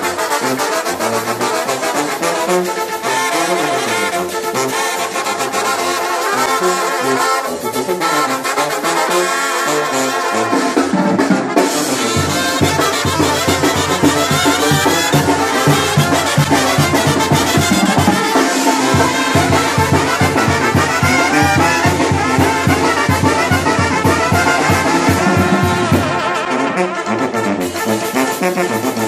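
Brass band music with trombones and trumpets playing, a steady low beat joining about twelve seconds in and dropping out near the end.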